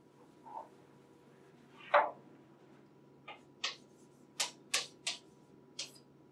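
Chalk writing on a chalkboard: a louder tap about two seconds in, then a quick run of about six short, sharp strokes.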